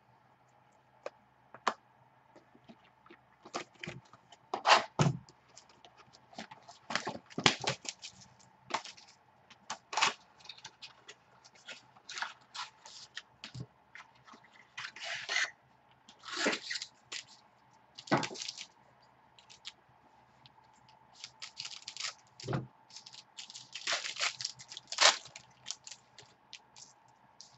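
Foil trading-card pack wrappers crinkling and tearing as hands open packs and handle cards, in irregular short rustles and clicks.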